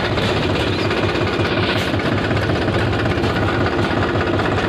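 Tractor's diesel engine running as it pulls along, a steady fast chugging, heard up close from the trailer it tows.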